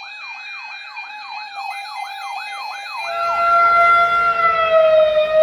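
Electronic siren in yelp mode: rapid rising sweeps, about three a second. About three seconds in it switches to a steady held tone that sags slightly in pitch, while a low rumbling noise builds beneath it.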